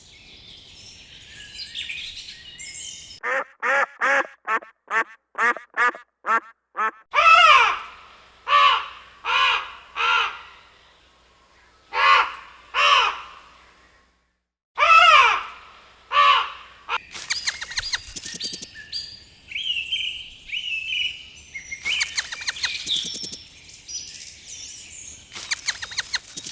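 Farm birds calling: high chirps, then a quick run of short quacks at about three a second, followed by louder, longer quacks spaced a second or so apart. Near the end come high chirping calls mixed with rapid clicking.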